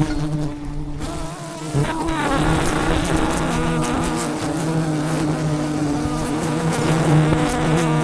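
A swarm of wild honeybees buzzing loudly and steadily around their hive, a dense hum with individual bees' pitches wavering as they fly past close by.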